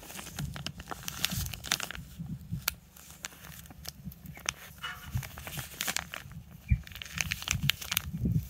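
Thin plastic bag holding a copper round crinkling and crackling in cotton-gloved hands, in irregular small crackles.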